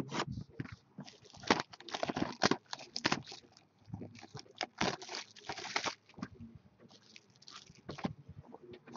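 Plastic wrapping on a box or pack of trading cards being torn open and crinkled by hand, in a string of irregular crackles.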